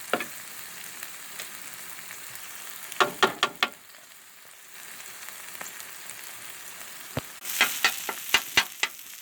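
Jasmine rice frying on a Blackstone flat-top griddle set on high, with a steady sizzle. A quick run of spatula taps and scrapes on the griddle comes about three seconds in, and another comes near the end.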